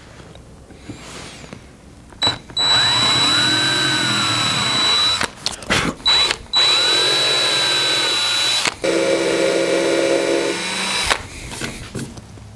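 Cordless drill with a small bit drilling pilot holes into an end-grain cherry cutting board. It runs in several bursts starting about two seconds in, the motor pitch rising and falling with the trigger, and stops about eleven seconds in.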